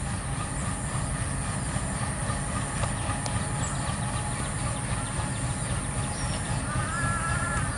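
Diesel-electric locomotives' engines rumbling as two trains roll slowly into a station, getting a little louder as they come closer.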